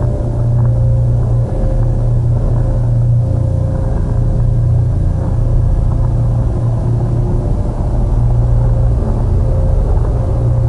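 Experimental electronic soundscape built from processed sounds through effects pedals: a loud, steady low droning rumble with faint held higher tones drifting in and out above it.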